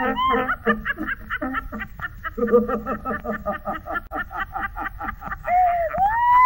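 Rapid, repeated cackling laughter, about six quick 'ha's a second, ending in a rising squeal near the end.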